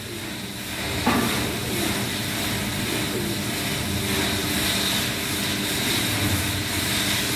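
Semi-automatic paper cutting machine's electric motor running with a steady hum and a thin high whine, stepping up a little in loudness about a second in.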